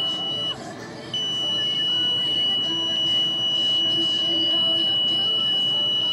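A steady high-pitched electronic tone with a slight pulse about every 0.6 s. It cuts out about half a second in and comes back just after a second, over faint background noise.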